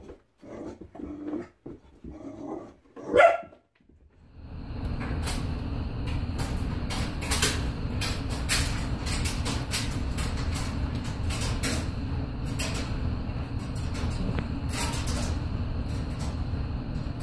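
Bulldog puppy barking: a few short yaps and one louder bark about three seconds in. After that comes a steady low rumble of handheld-recording noise, with scattered sharp clicks and faint barks.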